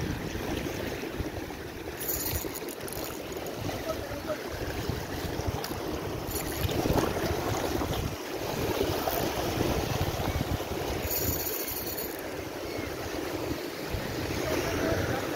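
Ocean swell surging and washing over shoreline rocks and kelp, a steady rushing wash that swells loudest about seven seconds in.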